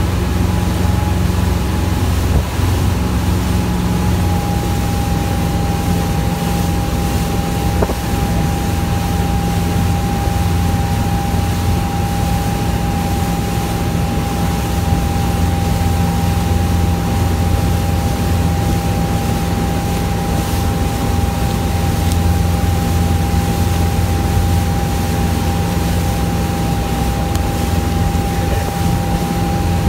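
Motorboat engine running steadily under load while towing tubes, with the rush of churning wake water. A steady thin whine sits on top of the engine's hum.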